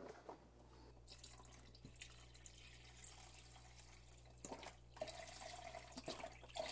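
Chicken broth pouring from a carton into a pot of raw chicken pieces, a faint trickling splash that gets louder about five seconds in.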